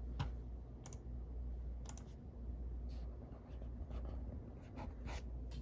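Faint, irregular light clicks and ticks, about a dozen scattered unevenly, over a low steady hum.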